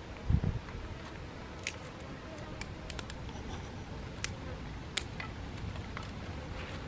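Small dry twigs being handled and snapped by hand: scattered light clicks and snaps, with a dull knock shortly after the start, over a low steady rumble.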